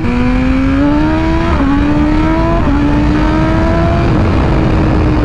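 BMW S1000RR inline-four sport bike engine accelerating hard. Its note climbs and drops with upshifts about a second and a half and two and a half seconds in, then holds steady. Wind rushes over the helmet camera throughout.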